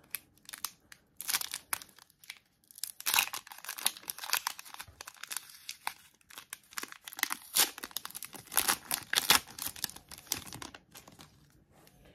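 Trading-card pack wrapper being torn open and crinkled, a run of irregular crackling and rustling that dies away about a second before the end.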